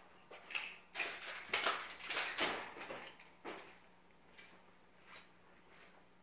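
Footsteps scuffing and crunching through scattered storm debris on a tile floor, with clinking and clattering of loose fragments. It is busiest in the first three seconds, then thins out to a few faint ticks.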